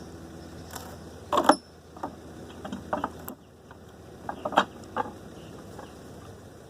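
Pallet buster levering boards off a heavily nailed wooden pallet: a series of sharp cracks and knocks as the boards pull away from their nails. The two loudest come about a second and a half in and about four and a half seconds in.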